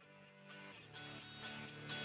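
Background music fading in from silence, a sustained chord of steady notes growing louder.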